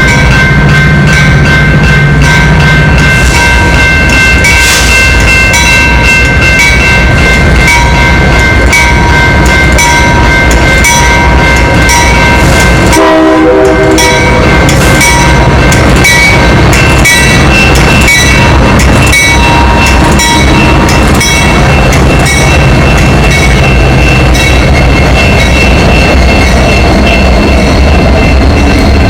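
Train passing very close, its locomotive air horn held almost continuously as a chord of several steady tones, with a brief break about halfway through, over a steady engine drone and rapid clicking of wheels over rail joints.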